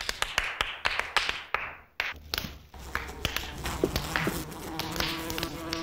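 Scattered sharp hand claps and taps. A brief gap about two seconds in, then more irregular taps, and a steady thin buzzing drone sets in near the end.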